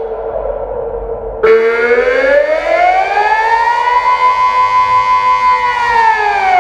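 Delta 6-Blau electronic civil-defence siren sounding the Austrian 'Alarm' signal, a slow rising and falling wail. The tone sits low, turns suddenly brighter and louder about a second and a half in, rises to a high pitch and holds, then begins to fall near the end.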